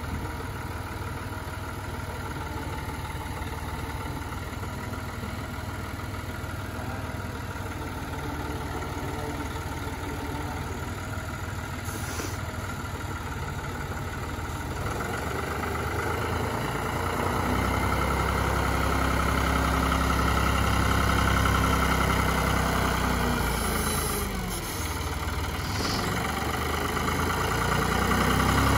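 John Deere utility tractor's diesel engine running. It runs steadily at first, then grows louder about halfway through as it works the front loader. Near the end it drops briefly and picks up again.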